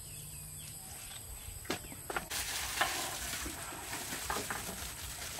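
Chopped food being handled and mixed in a steel bowl: a steady crisp rustle with light clicks, starting about two seconds in after a quieter stretch.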